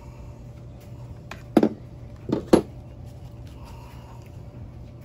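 Three sharp clicks and knocks of a spark plug wrench and plug being handled at a string trimmer's cylinder head, one about one and a half seconds in and two close together about a second later, over a low steady hum.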